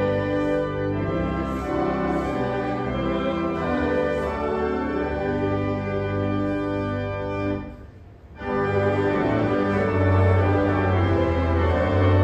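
Organ playing sustained chords, with a brief break about two-thirds of the way through before the chords resume.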